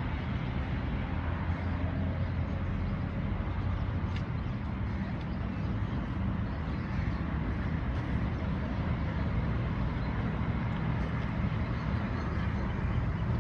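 Steady low mechanical rumble with an even hum, like a running engine.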